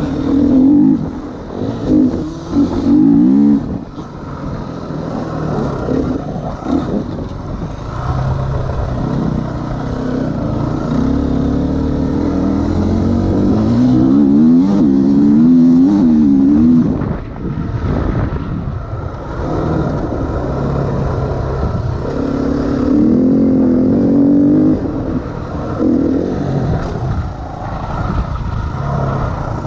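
Dirt bike engine heard close up from on the bike as it rides a motocross track. It revs up in rising runs about two seconds in, again from about twelve to seventeen seconds, and near twenty-four seconds, easing off between them.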